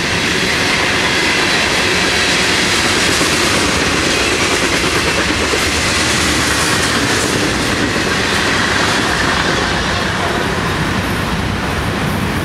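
Freight train cars rolling past close by, their steel wheels running on the rails in a loud, steady rumble with a fast rhythmic beat. The sound eases slightly near the end as the last car goes by.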